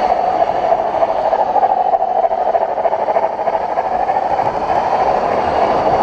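Model freight train rolling along its track on a model railway layout, a steady running rattle and hum.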